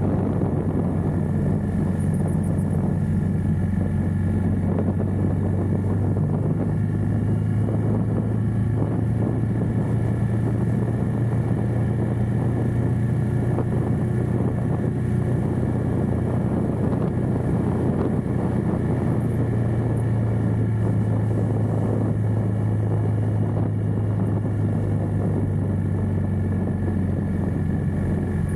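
Motorcycle engine running steadily under way, with the rush of riding air, heard from a mic on the bike. The engine note shifts slightly about six seconds in and again around twenty seconds in.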